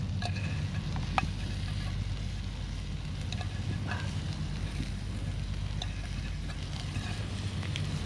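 Gas camp stove burner running steadily under a pan of foraged greens, with light sizzling from the pan and a few small clicks as ingredients are handled.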